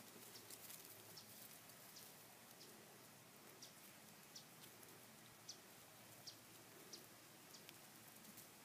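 Near silence: faint outdoor background with brief, high, thin chirps or ticks every second or so.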